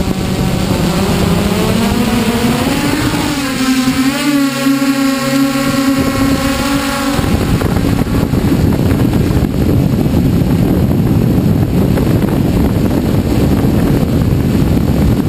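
Multirotor drone's electric motors and propellers whining, the whine rising in pitch over the first few seconds as they spin up, then holding steady. About seven seconds in, as the drone flies, the tone gives way to a loud, rough, even rushing noise.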